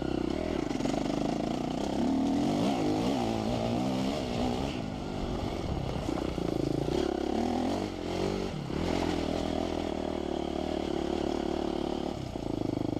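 Enduro dirt bike engine running while ridden along a rough gravel track, its pitch rising and falling repeatedly with the throttle for the first few seconds, dipping briefly past the middle, then running steadier.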